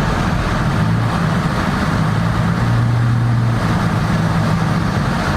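Car driving on snowy roads, heard from inside: a steady low engine hum over road and tyre noise. The hum swells for a moment about halfway through.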